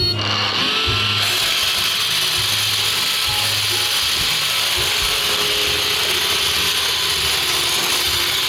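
iRobot Roomba Discovery SE robot vacuum running, its vacuum and brush motors giving a steady whirring hiss that starts suddenly and grows fuller about a second in.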